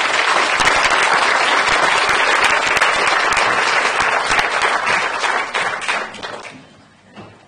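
Audience applauding: many people clapping together, tailing off and dying away near the end.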